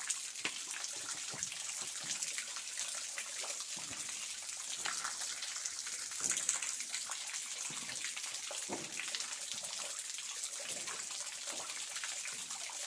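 Thin streams of spring water falling from a rock overhang and splashing onto the stones at a cave mouth: a steady hiss with many small drip taps.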